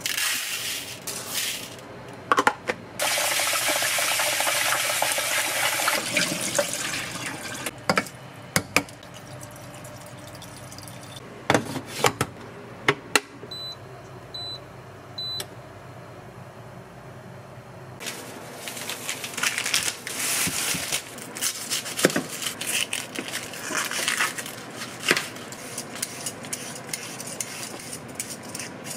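Household kitchen work: water running for a few seconds, scattered clicks and clatter of dishes and utensils, and three short electronic appliance beeps about halfway through.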